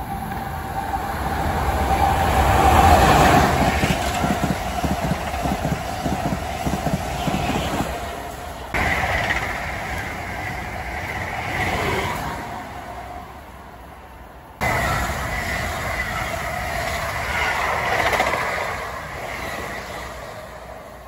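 Electric passenger trains passing a platform at speed: an Amtrak Acela high-speed trainset rushing by, then New Jersey Transit double-deck MultiLevel coaches. Steady wheel and rail noise swells as each train goes by and jumps abruptly at two cuts, about nine and fifteen seconds in.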